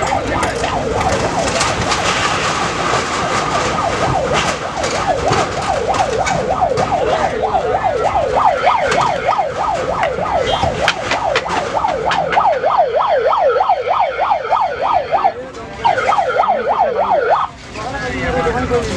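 A fast yelping siren, its pitch sweeping up and down about three or four times a second, growing stronger after a few seconds and cutting out briefly twice near the end. Under it, repeated knocks and clatter as an excavator tears down a tin-and-wood shop.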